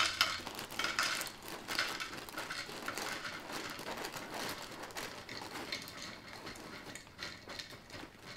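Quaker Vanilla Life cereal squares being poured from the bag into a bowl: a dry pattering clatter of pieces landing. It comes in several stronger surges over the first few seconds, then thins to a lighter trickle.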